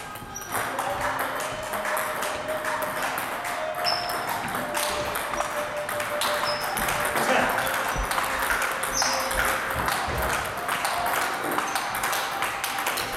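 Table tennis balls clicking off paddles and tabletops in a rapid, irregular patter, from rallies at more than one table, with voices in the background.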